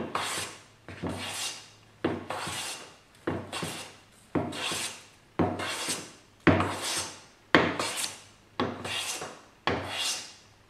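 A metal hand bench plane cutting shavings from a quarter-sawn poplar board in about ten even strokes, roughly one a second. Each stroke starts sharply and fades out as a hiss. The board is being planed flat to take down its high spots.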